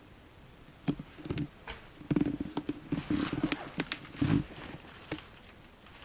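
A run of sharp clicks and knocks with a few dull thuds in between, bunched from about one second in until about five seconds in.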